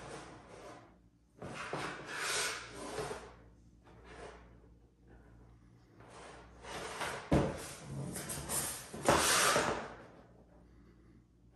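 Handling noise of a linear actuator's aluminium body being turned over in the hands: several separate bursts of rubbing and sliding against the metal, with a sharp knock about seven seconds in.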